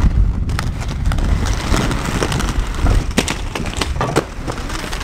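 Inline skates rolling on concrete with a steady low rumble, and several sharp knocks and scrapes of skates on the ground and ledge.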